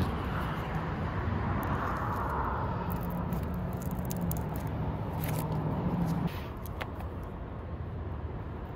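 Steady motor hum with a low tone that cuts off abruptly about six seconds in, with a few light scrapes and clicks as excess butyl tape is pulled from the edge of a roof vent flange.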